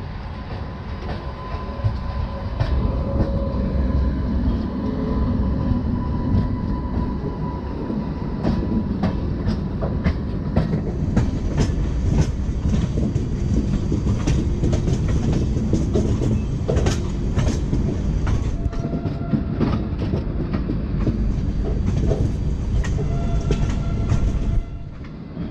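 Passenger train running on the rails: a steady rumble with sharp clacks from the wheels over rail joints, coming thick and fast from about ten seconds in.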